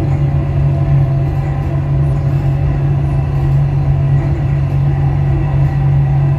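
Dubai Metro driverless train running at speed on elevated track, heard from inside the carriage: a steady low rumble of wheels on rail with the hum of the traction motors.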